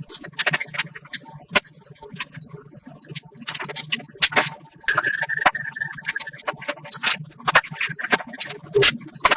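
Irregular clicks, knocks and rattles of small metal parts and tools being handled. A brief, steady high tone sounds about five seconds in.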